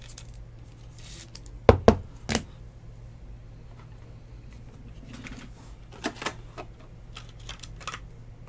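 Rigid plastic card holder and card being handled and set down on a table mat: three sharp clicks close together about two seconds in, then a few lighter clicks and taps near the end, over a steady low hum.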